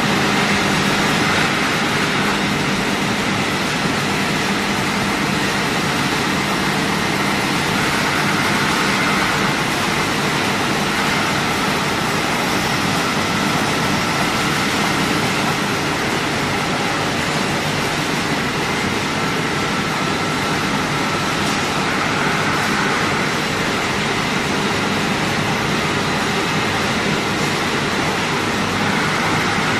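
Steady, loud mechanical noise of a running fried-snack production line, its extruder motors and conveyors whirring together, with a few faint steady tones running through it.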